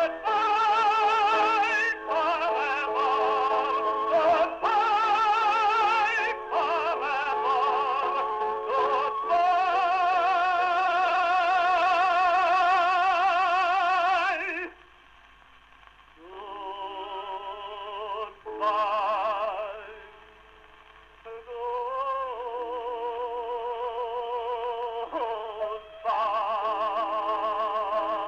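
Music with a strongly vibrato, operatic-sounding melody over held chords. About halfway through it breaks off suddenly, goes on more quietly, and swells back to full near the end.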